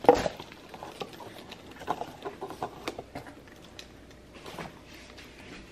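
Small plastic salsa cups being lidded and handled on a stone countertop: one sharp plastic click as a lid snaps on, then scattered light clicks and taps.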